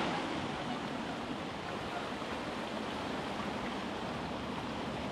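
Fountain water rushing and splashing as a steady, even noise with no separate events.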